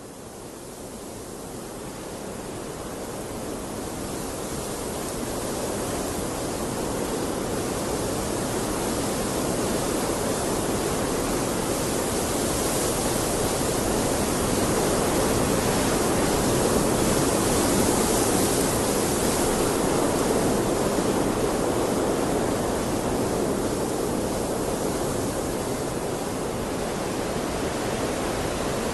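Waterfall: a steady rush of falling water, growing louder over the first several seconds and then holding steady.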